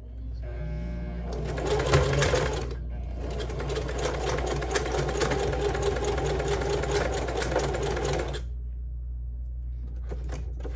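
Singer Heavy Duty sewing machine stitching through climbing rope: a short run of rapid stitching, a brief stop, then a longer run of about five seconds. A few light clicks follow near the end.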